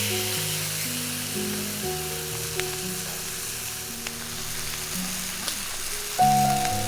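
Food sizzling and frying in a hot pan, a steady crackling hiss with a few faint ticks, under background music of held notes that gets louder near the end.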